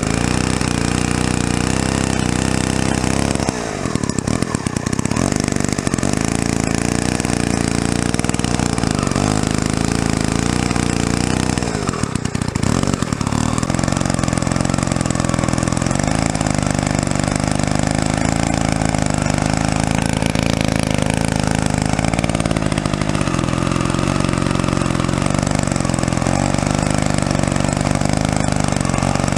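Druzhba-4 Elektron single-cylinder two-stroke chainsaw running while sawing into a tree stump, with two short dips in the engine sound, about 4 and 12 seconds in.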